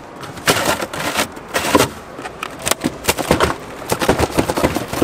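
Irregular clatter of clicks and knocks, several a second, from things being handled and knocked together.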